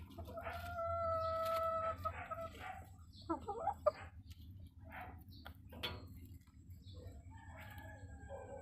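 Philippine native chickens: a rooster crows once, a drawn-out steady call of under two seconds near the start, then short clucks and calls follow at intervals.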